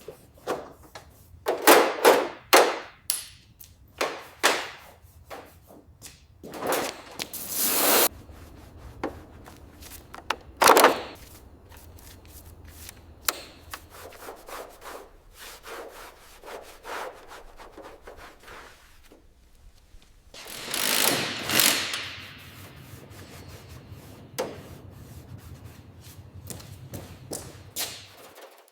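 Irregular hand scraping and rubbing strokes on the rusty body of a Nissan Skyline R32, cleaning off loose rust and grime, with a few longer, louder strokes among many short ones.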